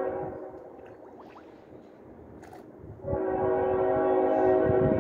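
A horn sounds two long, steady blasts. The first fades out just after the start, and the second begins about three seconds in and carries on past the end. There is a brief click in between.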